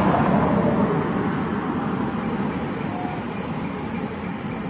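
Steady rumbling background noise, loudest at the start and slowly fading, with a steady high-pitched hiss above it.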